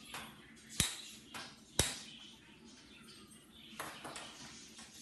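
Spark igniter clicking as a gas stove burner is lit: two sharp clicks about a second apart, then a softer click later.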